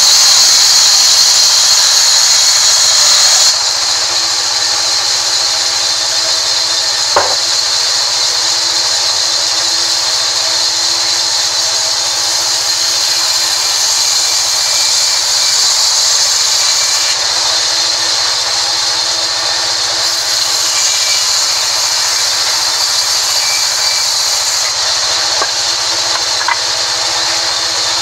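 A sawmill band saw cutting through a mahogany log, a steady high hiss of the blade in the wood. It is louder for the first few seconds, then settles a little lower, with a couple of faint clicks.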